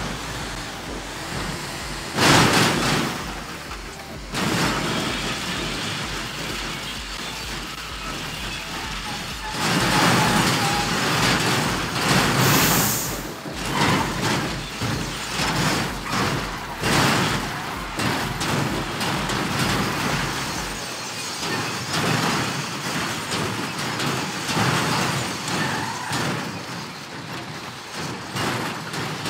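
A vehicle working down a steep, rough dirt track: its engine runs under an uneven rumble, broken by loud knocks and bangs as the vehicle jolts over the ruts, with a short high hiss about twelve seconds in.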